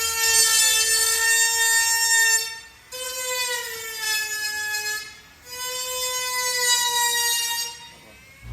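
Background music: a bowed-string-like lead melody of long held notes with slight slides between them, in three phrases separated by short breaks.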